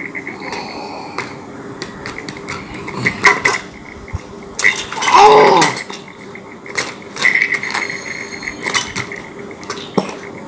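Plastic toys and a steel tumbler clicking and clattering in a plastic basket as a toddler rummages through them, in irregular knocks. A brief voice sound about five seconds in.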